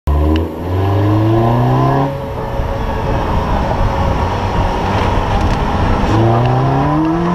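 Car engine accelerating, its pitch climbing for about two seconds, then a loud steady rush of road noise, then climbing again near the end.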